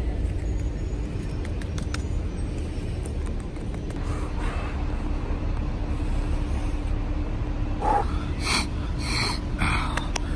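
Steady low rumble of outdoor city background noise with a faint steady hum, and a quick run of three or four short, sharp noises near the end.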